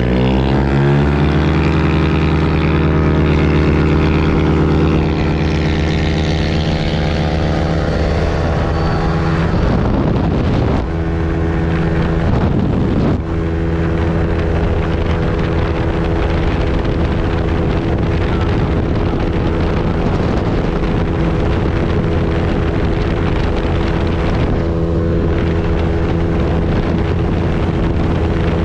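Yamaha NMAX 155 scooter's single-cylinder engine under hard acceleration from a crawl, its pitch climbing over the first several seconds. It then holds a steady drone cruising at about 80 km/h, with wind rushing over the microphone. The engine eases briefly twice, around 11 and 13 seconds in.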